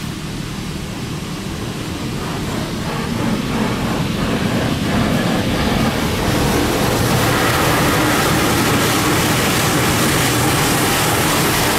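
High-pressure water jets of a Water Wizard touch-free automatic car wash spraying against the van's windshield and windows, heard from inside the cabin as a steady rushing noise that grows louder over the first several seconds. It is very loud.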